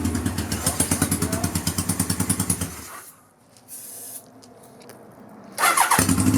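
1979 Kawasaki KZ1000's four-cylinder engine running with a fast, even pulse on its first start after the rebuild. It dies about three seconds in and fires up again near the end.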